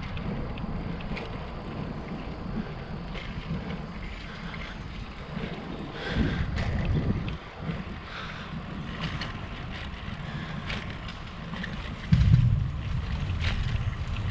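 Wind buffeting the microphone over the steady rumble of wheels rolling along a concrete path, with scattered light clicks and rattles. Louder gusts of low rumble come about six seconds in and again near the end.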